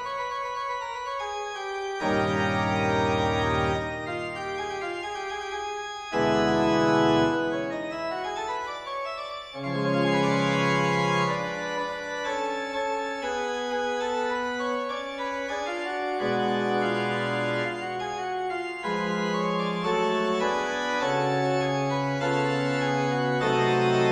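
Background organ music: full held chords, with the bass note shifting every couple of seconds.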